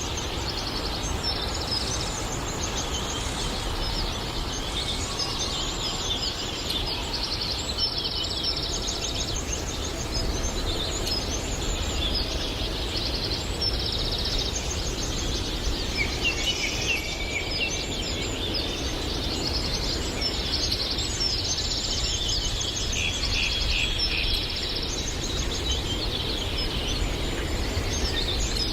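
A chorus of forest birds singing, with many overlapping rapid high chirps and trills that keep going without a break, over a steady low background rumble.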